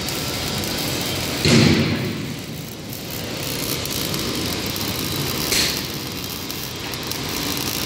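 Steady din of a steel fabrication workshop with MIG welding under way, and one loud thud about a second and a half in.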